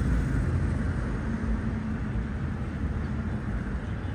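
Subway train in a rail yard: a steady low rumble.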